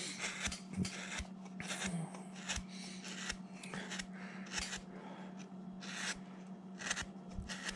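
A number 9 carving gouge pushed by hand through wood, making a string of short, crisp slicing scrapes as chips come off while a figure's neck is roughed out.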